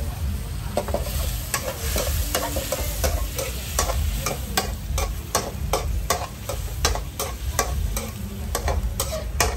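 Metal spatula scraping and clanking against a wok as squid and shrimp are stir-fried, about two to three strokes a second. Under it, the food sizzles in the hot pan over a steady low rumble.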